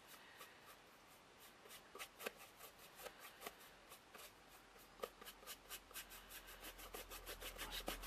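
Faint brushing of a small paintbrush dabbing and stroking paint onto a painted surface: a string of soft scratchy ticks that come more often toward the end.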